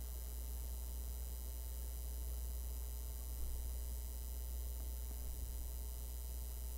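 Steady low electrical hum, like mains hum picked up by the recording setup, with no other clear sound over it.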